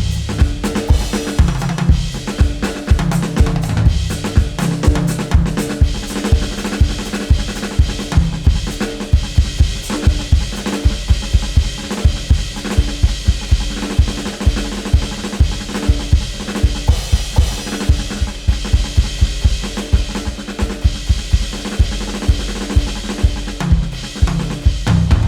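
Music with a driving drum kit: steady bass-drum and snare beats with cymbals, over a pitched bass line.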